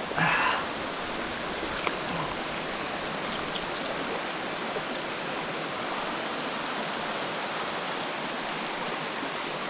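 A rocky mountain trout stream rushing steadily over stones, with a short, louder swish near the start.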